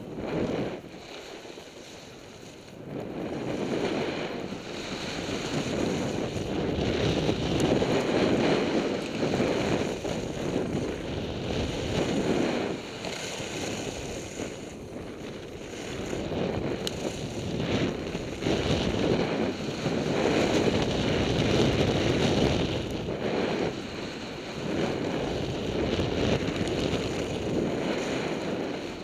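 Wind rushing over a skier's camera microphone during a downhill run, mixed with the hiss of skis sliding on snow. It swells and eases every few seconds as speed and turns change.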